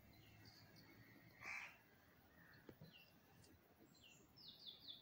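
Birds calling faintly: one short, harsh call about a second and a half in, and high, short chirps that fall in pitch, coming in a quick run near the end.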